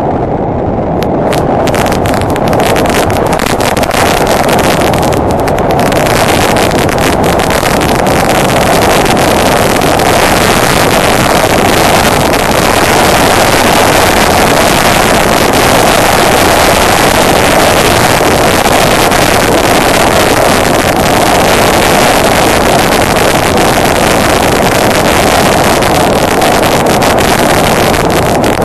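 Steady rush of wind on the microphone of a Honda Deauville NT650V motorcycle riding at speed, with the bike's V-twin engine running underneath. The wind noise fills in and grows a little louder over the first few seconds.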